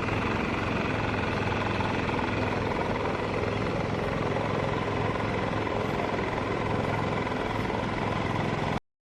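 A small petrol engine on yard power equipment running steadily at an even pitch, then cutting off suddenly near the end.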